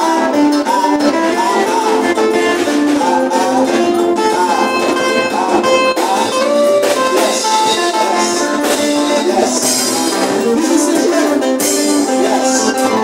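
Live church band music: electric guitar playing melodic lines over keyboard and a drum kit, with cymbals growing louder in the second half.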